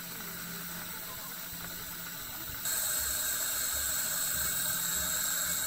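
Steam hissing steadily from a 7¼-inch gauge miniature steam locomotive, getting suddenly louder about halfway through.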